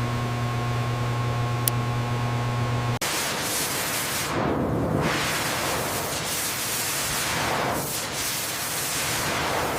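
A steady machine hum with a few fixed tones over hiss, which cuts off abruptly about three seconds in. A loud rushing hiss follows, swelling and fading several times.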